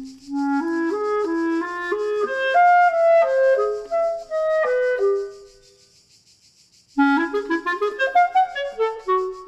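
Woodwind music led by a clarinet playing a bouncy melody. It breaks off for about a second and a half midway, then comes back with a quick run of rising notes.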